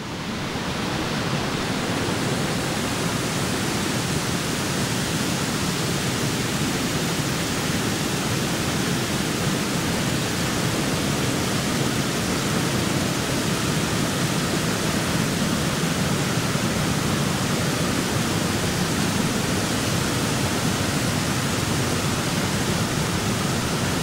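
Waterfall cascading over moss-covered stepped rock ledges: a steady, even rush of falling water.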